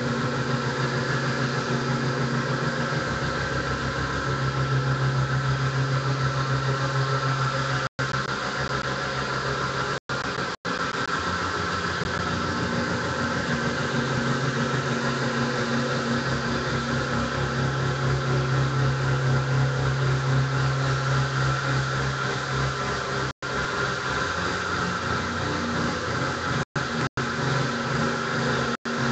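Guitar drone: low notes held for many seconds and slowly shifting under a dense, hazy wash of sustained sound. It cuts out for an instant several times.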